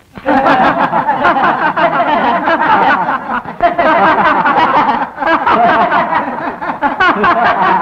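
Several people laughing and chattering together, overlapping voices with no pause.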